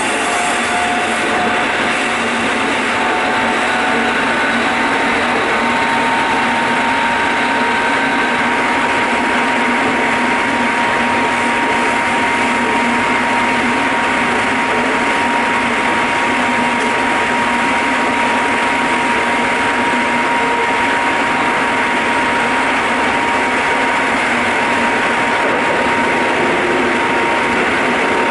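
Keikyu 800 series electric train car running at steady speed, heard from the floor above its bogie: continuous rolling noise of wheels on rail, with a steady whine that comes in about six seconds in and holds level.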